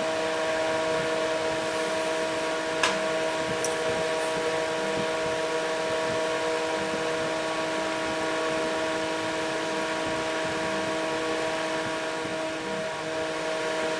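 Bus power supply's cooling fan running steadily: an even whirring hiss with a constant hum of several tones. A single light click about three seconds in.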